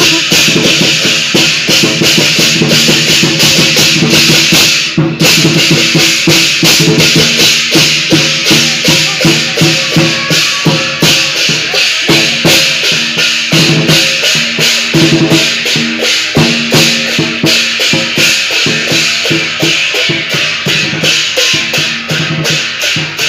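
Chinese lion dance percussion: a big drum with crashing cymbals beating a loud, steady rhythm of about two strikes a second.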